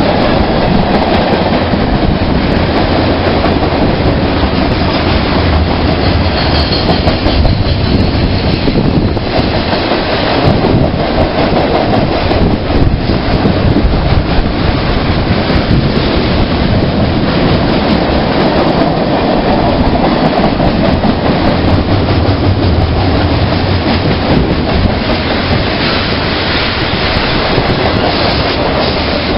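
Train passing close by, its wheels clicking over the rail joints with a steady rumble throughout.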